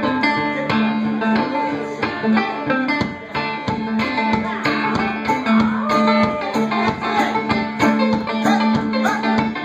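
Live blues band starting a song: banjo and electric guitar picking a quick, steady rhythm, with harmonica bending notes over it.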